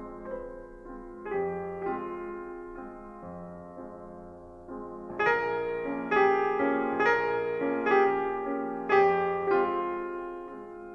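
Slow solo piano music: sparse single notes at first, then louder chords struck about once a second from about halfway through.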